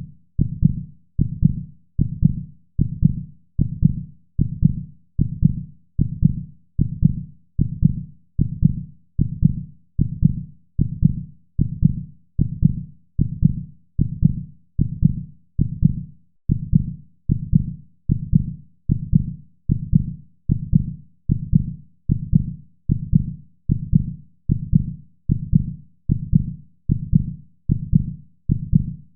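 Heartbeat sound: a steady, slow rhythm of low, muffled lub-dub double thumps, a little more than one beat a second, without variation.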